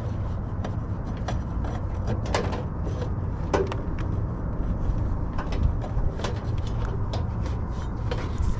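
Hand tools and parts being handled during wiring work inside an HVAC unit's metal cabinet: scattered sharp clicks and light knocks at irregular times, over a steady low rumble.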